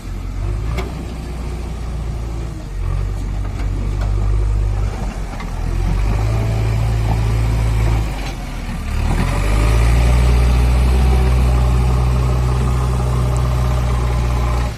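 JCB 3DX backhoe loader's diesel engine running under load as the machine pushes sand with its front bucket and climbs a sand pile. The engine note dips briefly twice, then runs louder and steadier for the last five seconds or so.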